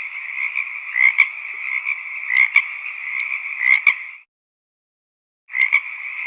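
A chorus of many frogs croaking continuously, with a louder call standing out about every second and a half. The sound cuts out completely for about a second past the middle, then the chorus resumes.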